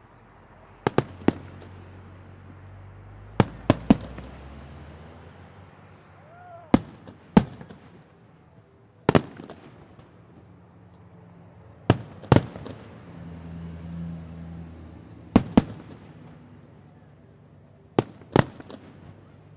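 Fireworks bursting: sharp bangs, mostly in close pairs every two to three seconds, with a low rumbling echo between them.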